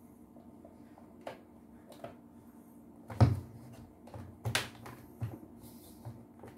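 Plastic clicks and knocks from a small vacuum cleaner's housing being handled, turned and set down on a wooden workbench, with a sharp knock about three seconds in and a few lighter ones after.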